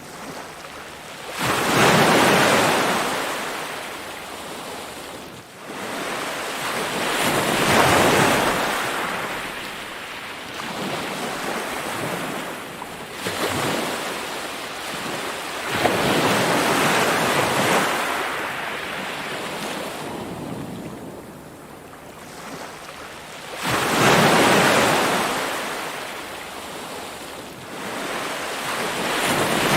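Ocean waves breaking and washing in, about six surges that each swell up and then drain away over a few seconds.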